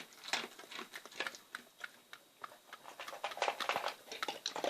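Pets eating dry food: irregular crunching and chewing clicks, several a second, with brief pauses.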